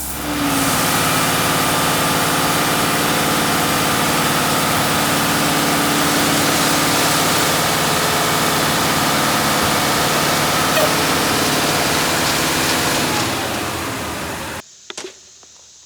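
A machine's engine running steadily with a loud, even noise, cutting off suddenly near the end.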